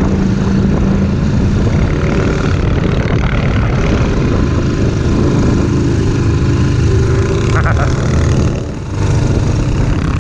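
ATV engine running under way, steady and loud, with rushing noise over it; the engine eases off briefly about nine seconds in, then picks up again.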